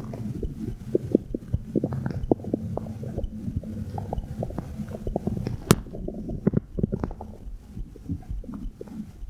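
Stomach gurgling and rumbling, picked up by a phone microphone pressed against the belly, with a steady low rumble and many short bubbling pops; a single sharp click just before the middle.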